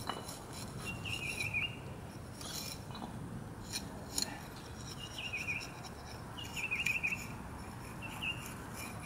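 Faint scraping of a steel brick-jointing tool working fresh mortar joints, with a few sharp clicks near the middle. A bird repeats a short warbled chirping phrase about five times.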